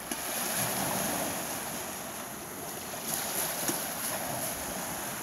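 Small waves breaking and washing up a pebble beach, the wash swelling about a second in and again a few seconds later.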